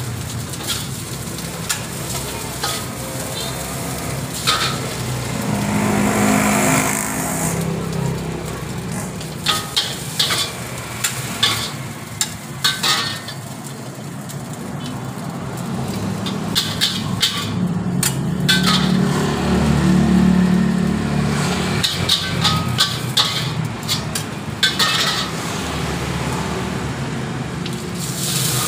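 A metal spatula scrapes and clanks against a steel wok as fried rice is stir-fried, in a string of short knocks over a steady frying sizzle. Near the end, water runs into the hot wok.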